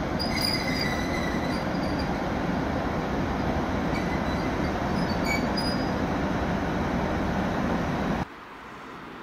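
ET42 twin-section electric freight locomotive rumbling steadily alongside a platform, with thin high wheel squeals about a second in and again around four to five seconds in. The sound cuts off abruptly near the end, leaving a much quieter steady hiss.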